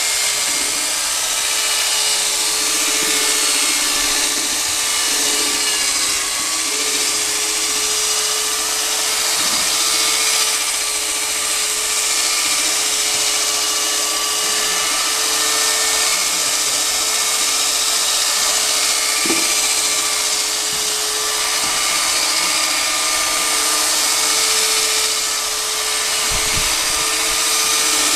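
Electric paddle mixer running steadily, its paddle churning thick plaster mix in a plastic bucket, with a steady motor whine. A brief low knock near the end.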